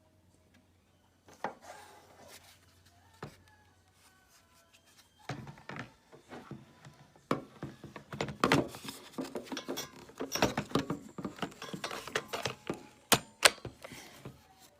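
Plastic clicks, knocks and rubbing of a BLACK+DECKER 20V MAX cordless tool and battery pack being handled and the battery swapped, busier from about five seconds in with two sharp knocks near the end. No motor runs: with this battery the tool is not working.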